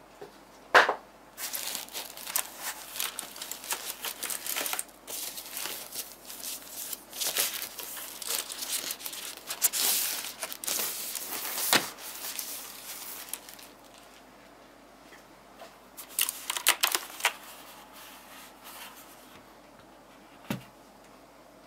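Typing on a Rosewill RK-9000 mechanical keyboard with clicky Cherry MX Blue switches: a sharp single keystroke, then a long rapid run of keystroke clicks, a pause of a couple of seconds, another short burst, and one last keystroke near the end.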